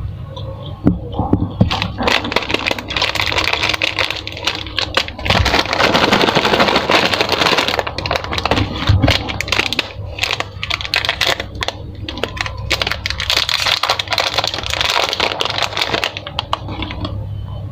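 Plastic candy wrappers crinkling and crackling as they are handled, with many quick sharp clicks for most of the stretch.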